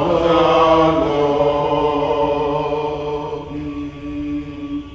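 Voices singing long held notes in a slow chant, with a change of pitch about three seconds in and fading near the end.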